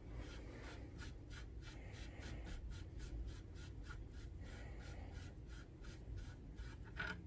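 Suppressor being unscrewed by hand from a rifle's 1/2x28 threaded barrel, its metal threads giving a faint, even scraping tick about four times a second.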